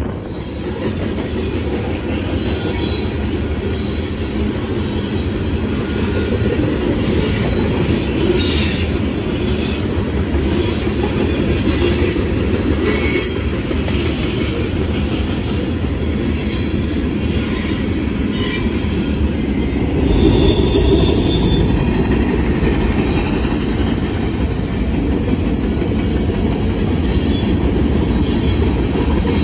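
Union Pacific freight train cars rolling past: a steady, loud rumble of steel wheels on rail. High thin wheel squeals come and go, strongest about two-thirds of the way through.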